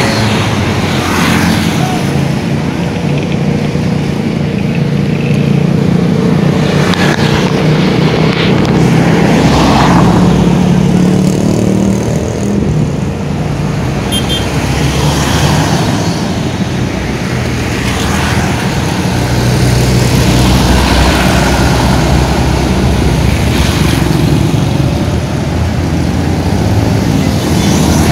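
Road traffic: vehicle engines running and passing by, the low engine sound swelling and easing over several seconds.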